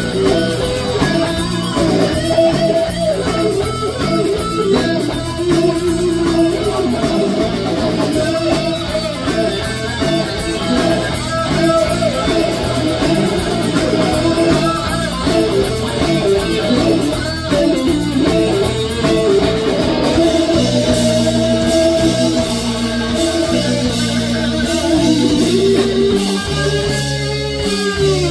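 A live rock band playing, with electric guitars, bass guitar and drums, the cymbals keeping a steady beat.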